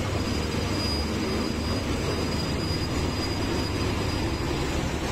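Steady mechanical rumble of railway track-laying machinery working in a tunnel, with a thin high whine through the first half.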